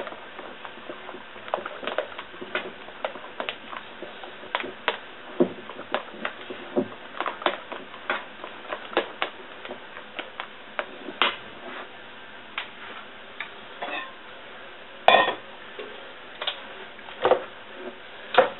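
A utensil knocking and scraping against a stainless steel bowl while chocolate mousse is mixed: irregular light clicks, one or two a second, with a few louder knocks about fifteen seconds in and near the end.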